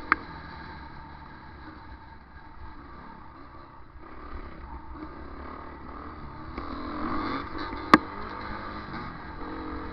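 Off-road motorcycle engine running as the bike rides a dirt trail, heard from the rider's own camera. The engine gets louder about seven seconds in, and a single sharp knock hits about eight seconds in.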